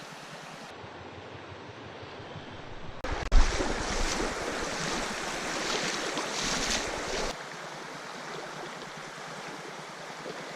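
Steady rushing of a mountain stream. About three seconds in, a much louder stretch of rushing noise starts with a sharp knock and cuts off abruptly a few seconds later.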